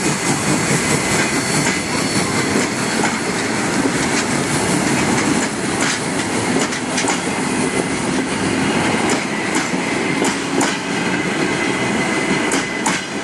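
Passenger carriages of a steam-hauled train rolling past at low speed, their wheels clattering over the rail joints. Sharp clicks come more often in the second half.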